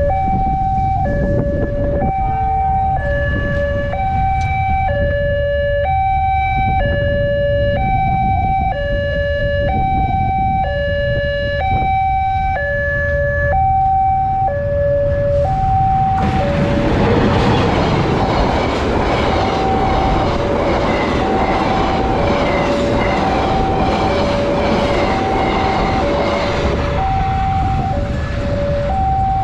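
Railway level-crossing warning signal sounding its alternating two-tone chime, high and low notes taking turns. About 16 seconds in, a KAI passenger train passes over the crossing, and the rumble and clatter of its wheels rise over the chime, which keeps sounding.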